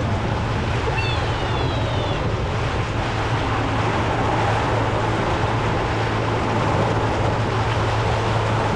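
Electric DC outboard-style boat motor driving the propeller at full throttle: a steady low hum under the rush of churning wake water and wind on the microphone.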